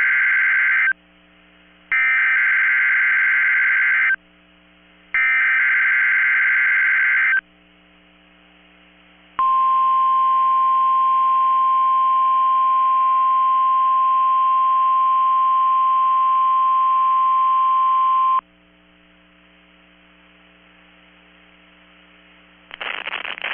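NOAA Weather Radio emergency alert signal: three bursts of buzzy Specific Area Message Encoding data, about two seconds each and a second apart, then after a short pause the steady 1050 Hz warning alarm tone held for about nine seconds. This is the alarm that switches on weather alert radios, sent here as the Required Weekly Test.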